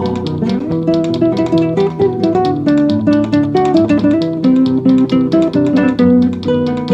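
Acoustic guitar music: a plucked melody of quick successive notes over lower bass notes.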